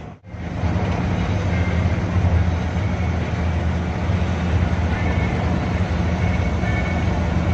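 Cabin noise of a 1997 Hino RK2HM bus cruising at speed on a wet road: a steady low engine drone under a constant rush of tyre and road noise. The sound drops out briefly just after the start.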